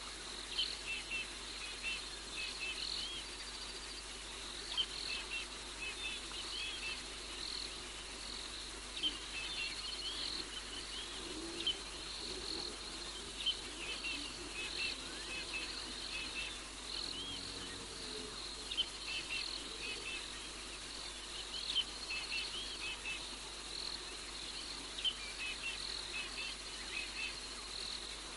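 Night bush chorus: insects chirring steadily on one high note, with clusters of short high chirps every second or two.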